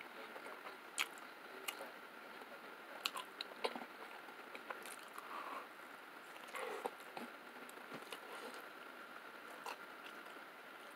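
A person biting into and chewing a slice of pizza close to the microphone, with scattered crunching clicks and wet mouth sounds.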